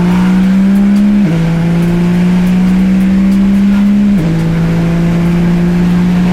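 Nissan GT-R R35's twin-turbo V6 pulling under acceleration, its pitch climbing slowly and dropping sharply with quick upshifts about a second in and again about four seconds in.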